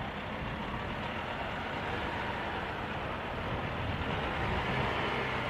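Heavy military truck's engine idling steadily, a constant low rumble under a broad hiss.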